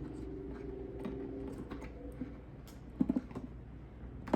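Small clicks and taps from a headlight assembly's wiring connectors being handled and pushed into place, with a quick run of clicks about three seconds in.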